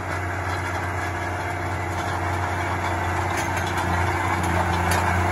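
Case IH MX120 tractor's six-cylinder diesel engine running steadily as it pulls a harrow across the field, growing a little louder as it comes closer.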